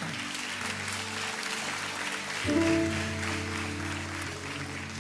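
Worship band keyboard holding soft sustained chords, with a fuller new chord coming in about halfway through, over scattered applause from the congregation.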